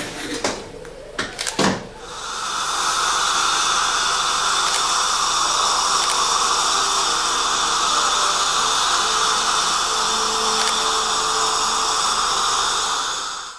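A few sharp clicks, then about two seconds in, dental equipment starts up and runs with a loud, steady hissing whir.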